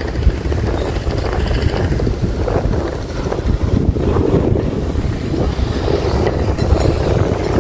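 Wind buffeting the microphone: a loud, uneven low rumble, with engine noise mixed in.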